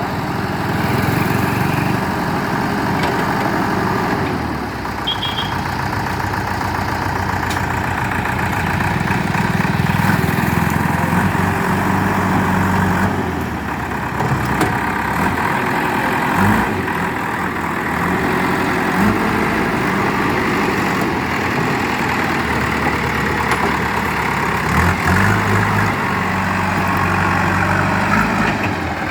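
JCB 3DX backhoe loader's Kirloskar diesel engine running, its revs rising and falling several times as the machine works.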